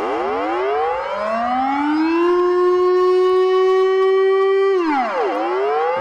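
Recording of the Dutch emergency alert siren: one wailing tone that rises in pitch over about two seconds, holds steady, then drops steeply about five seconds in and starts to climb again.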